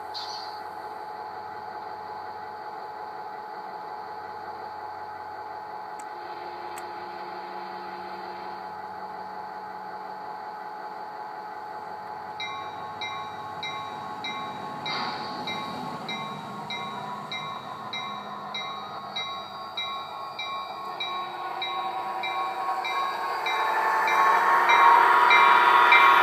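Zimo MX695KV sound decoder in a G scale SD40-2 model playing a recorded SD40-2 diesel locomotive sound through the model's speaker: a steady running drone, joined about halfway through by a bell ringing about one and a half strokes a second. The sound grows much louder toward the end.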